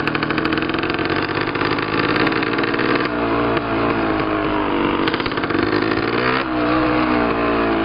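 Dirt bike engine running under way at road speed, heard from the moving bike. The note drops and then climbs again about three seconds in and about six and a half seconds in, like gear changes while accelerating.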